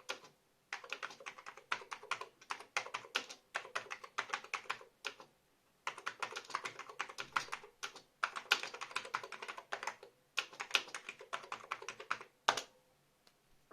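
Mitsumi KKR-E99AC computer keyboard being typed on: fast runs of keystrokes in bursts of a few seconds with short pauses between, ending in one louder single keystroke near the end.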